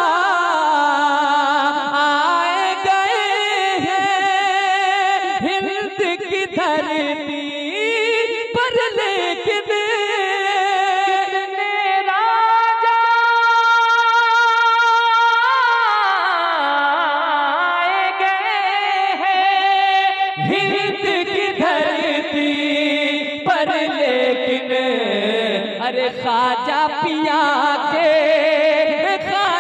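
A man singing a naat through a microphone, drawn-out phrases with wavering ornaments and no clear words, and one long held note about halfway through.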